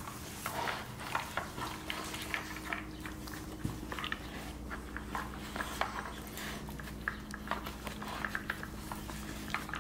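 Hard plastic layers of a dog treat-puzzle toy clicking and knocking as a husky noses and pushes them on a tile floor, in irregular, uneven taps.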